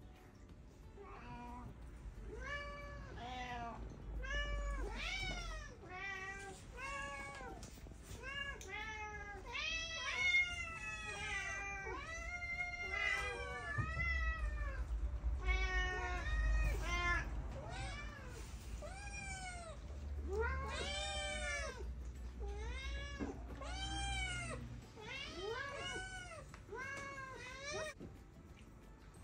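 Domestic cats meowing again and again, each meow rising then falling in pitch, with several calls overlapping in the middle: cats begging for the tuna being eaten at the table.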